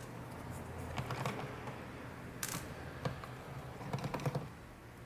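Light, irregular clicks and taps of a Phillips screwdriver working the screws out of a laptop's plastic bottom case, with a few sharper clicks around the middle and a cluster of them near the end.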